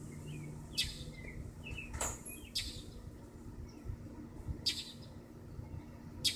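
Blue jay giving short, harsh scolding calls, about five of them at irregular spacing: alarm calls at a cat. Faint short chirps are heard between the calls.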